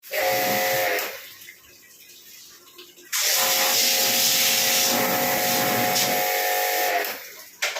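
Pressure-washer jet spraying water to wash an air conditioner: a short burst of about a second, then a longer spray of about four seconds, with the pump motor's steady whine under the hiss of the water.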